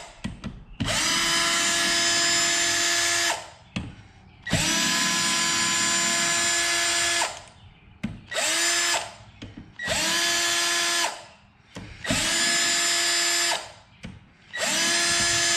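Cordless drill backing out bolts on a motorcycle engine, one after another in a crisscross pattern. The motor spins up and runs in six bursts of about one to three seconds each, with short pauses between them.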